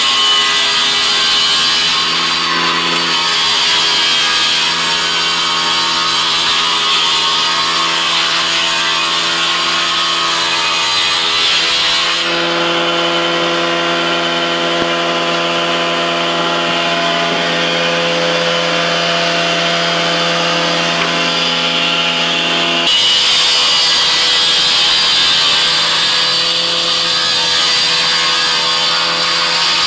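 Table saw running and ripping a wooden board, the blade's steady hum under a loud cutting hiss. About twelve seconds in the cutting stops and the blade spins free with a plain hum for about ten seconds, then cuts into wood again.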